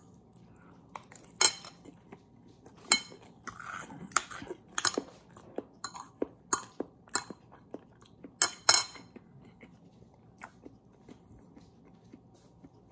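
Eating at the table: irregular sharp clinks of cutlery against a plate mixed with chewing and crunching, most of them in the first nine seconds and fewer after.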